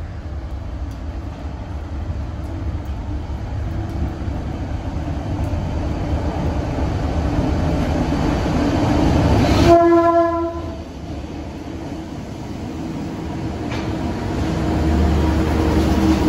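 Diesel-electric freight locomotives approaching and passing close by. A rumble builds steadily, a short locomotive horn blast sounds about ten seconds in, and the engine noise swells again near the end as the locomotives run past.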